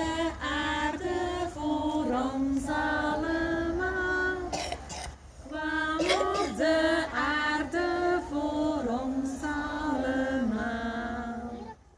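A group of young children singing a Christmas song together in Dutch, in two long phrases with a short breath pause about five seconds in; the singing stops near the end.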